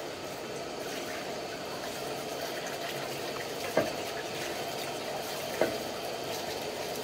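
Water running from a washbasin tap into a clay bowl as it is filled, a steady splashing hiss, with two sharp knocks about four and five and a half seconds in.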